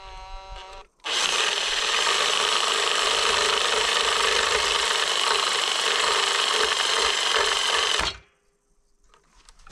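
Handheld Makita power tool whines briefly, then cuts into the wooden carving with a loud, steady, harsh noise for about seven seconds. It stops suddenly about eight seconds in, and a faint fading hum follows as the motor winds down.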